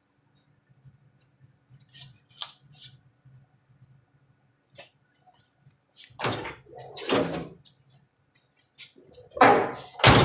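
Objects being handled and rummaged through: a few light clicks and taps, then louder clunks and clattering about six seconds in and again near the end, over a faint steady hum.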